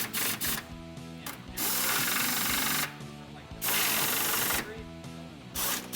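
Power drill/driver running in bursts as it drives bracket mounting screws: several short spurts and two longer runs of about a second each, over background music.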